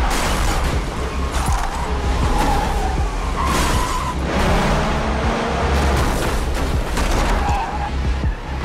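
A film action mix: a truck shoving a car sideways at speed, with engines, tyre squeals and sharp impacts over a heavy pulsing bass score.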